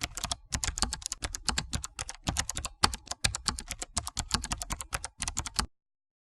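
Typing on a computer keyboard: a rapid, uneven run of keystroke clicks that stops shortly before the end.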